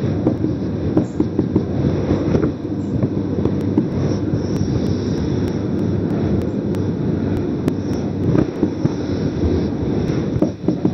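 Low, uneven rumble and crackle of microphone noise, steady in level with small irregular peaks, while a marker is writing on a whiteboard.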